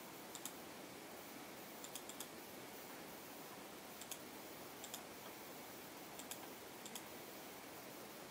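Faint computer mouse clicks, some single and some in quick pairs, scattered over a steady hiss.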